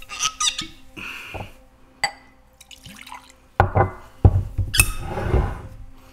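Cork stopper squeaking as it is twisted out of a bourbon bottle, then bourbon poured from the bottle into a cut-crystal rocks glass, with sharp knocks of glass against the wooden counter during the pour.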